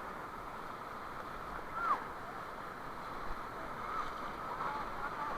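Steady rush of whitewater as a raft is paddled through a river rapid, with faint shouts from the rafters. One shout is louder, about two seconds in.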